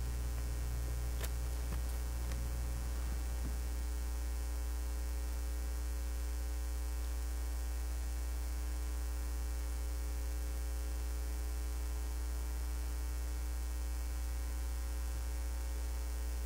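Steady electrical mains hum on the audio feed, with a couple of faint clicks in the first few seconds.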